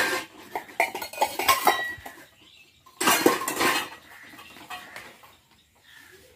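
Steel dishes clattering and clinking as they are picked up and handled, with a louder clatter about three seconds in.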